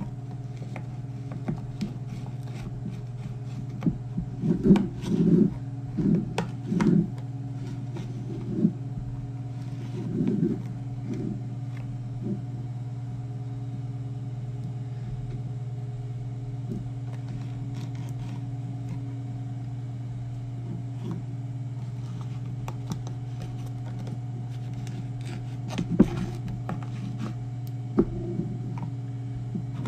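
Soft irregular thumps and rubbing as a Turbo 400 clutch piston with fresh seals is worked down into its drum with a plastic lip-seal installer tool, bunched in the first third and again near the end, over a steady low hum.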